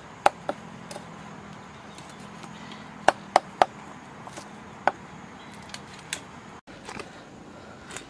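Cleaver chopping small plucked birds on a round wooden chopping block: two sharp chops near the start, three in quick succession about three seconds in, one more about five seconds in, then a few lighter knocks.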